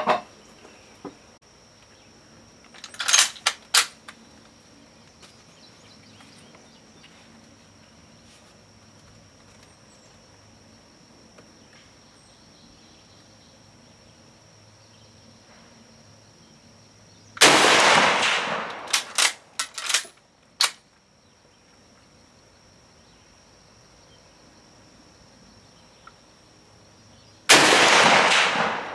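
Two rifle shots from a Finnish M91 Mosin-Nagant in 7.62x54R, about ten seconds apart. Each rings on for over a second and is followed by several sharp metallic clacks of the bolt being worked. A few similar clacks come about three seconds in.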